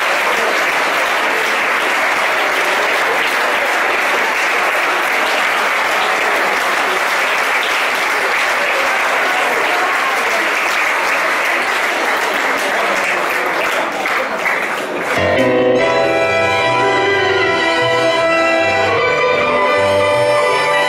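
Audience applauding between pieces, the clapping thinning out about fourteen seconds in; then a tango trio of violin, bandoneon and piano starts the next piece.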